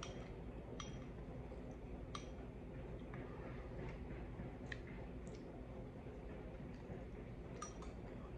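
Metal spoon faintly clicking against a ceramic bowl of raspberries, a few scattered light clicks over a low steady room hum.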